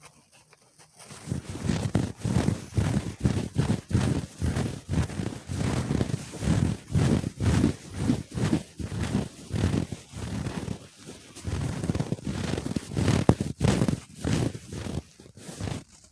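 Rapid ASMR trigger sounds made close to the microphone: a quick, uneven run of soft strokes, several a second, starting about a second in and thinning out near the end.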